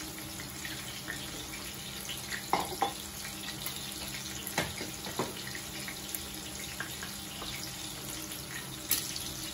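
Tanigue (Spanish mackerel) steaks frying in butter: a steady sizzling hiss, with a few sharp pops and spits.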